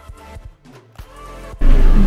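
Quiet background music with held notes, cut off about a second and a half in by a sudden, much louder din of room noise and voices.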